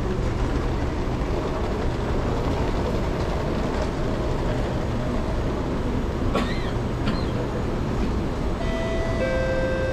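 Steady low hum of a Singapore MRT train standing at a station platform with its doors open. Near the end, two held chime tones sound, the second lower than the first, just before the doors-closing announcement.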